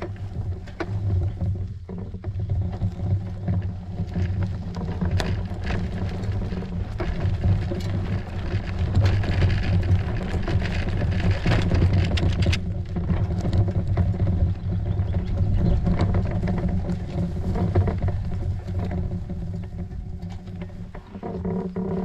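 Bicycle rolling along a bumpy dirt and sand path, heard from a camera mounted on the bike: a steady low rumble from the tyres and frame, with frequent small rattles and knocks from the bumps.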